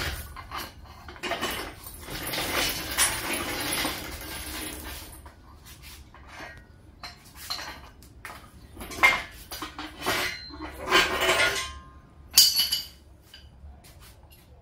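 Steel hand tools and hardware clinking and clattering in irregular separate knocks, with a denser rattle in the first few seconds, as wrenches and bolts are handled to fit the engine stand's mounting plate.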